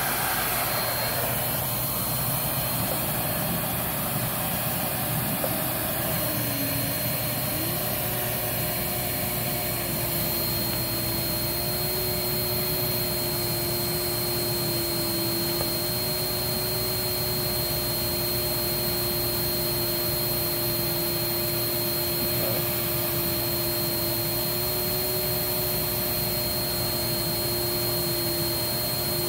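Riccar R25 upright vacuum's suction motor running steadily with the brush roll off, pulling air through the floor nozzle past an anemometer. A steady whining drone, its lower pitch stepping up slightly about seven seconds in.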